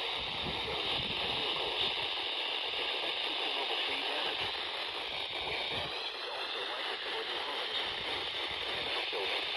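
Weather radio static: a steady hiss from a weak broadcast signal, with the warning's voice faint beneath it.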